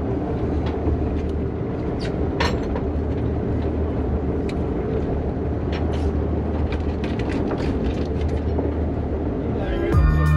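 Steady low drone of a fishing boat's engine running at idle, with scattered small clicks and knocks from handling tackle and fish on deck. Music comes in just before the end.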